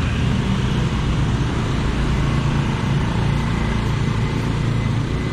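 Road traffic: vehicle engines running steadily close by, a continuous low rumble with no pauses.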